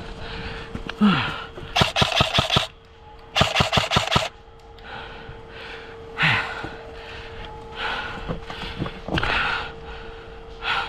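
Two short bursts of full-auto fire from an airsoft electric gun, each a rapid string of clicks just under a second long, about two and three and a half seconds in. A faint steady tone sounds under them, with a few breathy exhalations.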